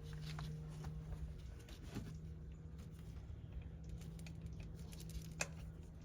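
Torque wrench clicking as the valve cover bolts are checked at 8.8 foot-pounds: a few scattered light clicks, the sharpest near the end, over a steady low hum.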